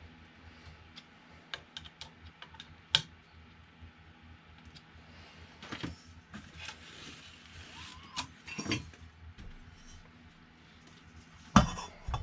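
Parts and small hardware of a Creality Ender 3 Pro 3D printer being handled during assembly: scattered clicks and light knocks, a sharp knock about three seconds in, and the loudest knock near the end.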